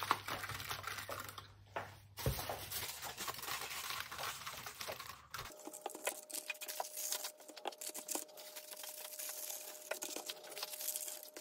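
Aluminium foil crinkling and crackling in irregular bursts as it is pressed and crimped by hand over the rims of plastic cups.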